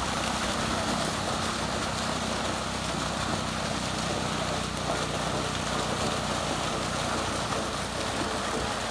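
Continuous splashing of a mass of fish thrashing at the water's surface in a lifted fish-cage net, with a small engine running steadily underneath.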